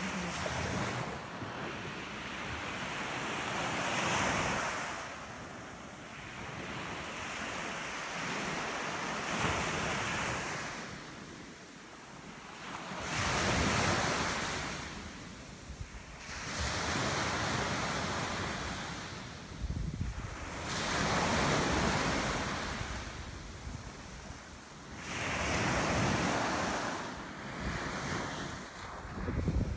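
Small surf breaking and washing up a sandy beach, the rush swelling and fading every few seconds, with wind buffeting the microphone.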